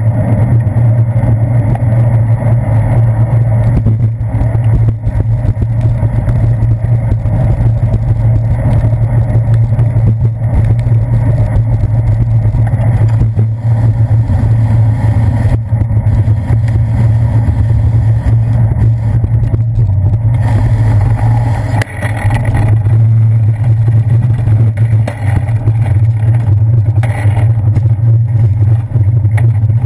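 Steady low drone of wind and road rumble on a handlebar-mounted GoPro Hero 2 as a bicycle rides over wet pavement in the rain, with a brief change in the noise about two-thirds of the way through.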